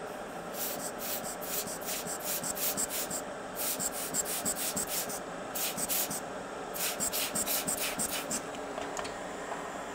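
Foam swab scrubbing across a phone circuit board, cleaning it after soldering: a run of quick rubbing strokes, several a second, in bursts with short pauses, stopping shortly before the end. A steady hum runs underneath.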